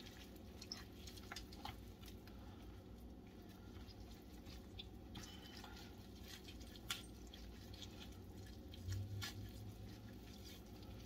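Soft, faint wet squishing and tearing of tender smoked pork shoulder being pulled apart by gloved hands, with scattered small ticks over a low steady hum.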